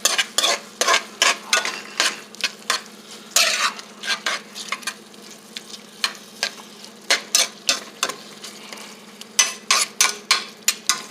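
Food sizzling in a hot frying pan while a utensil stirs and scrapes through it in quick, irregular strokes over a steady frying hiss: the stir-fry stage of making fried rice.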